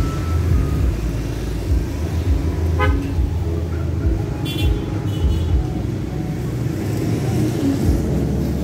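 Road traffic with a heavy low rumble, a short vehicle horn toot about three seconds in and a brief higher-pitched beep around four and a half seconds.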